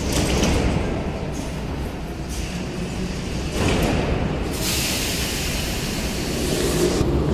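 Moscow Metro 81-717-type train pulling out of the platform, a steady low rumble of wheels and running gear that swells about halfway through and keeps growing louder as the train gathers speed.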